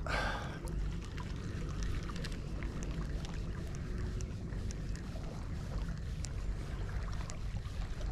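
Steady low rumble of wind on the microphone and sea water lapping at the rocks, with a short rustle at the start and faint scattered ticks as a spinning reel is slowly retrieved.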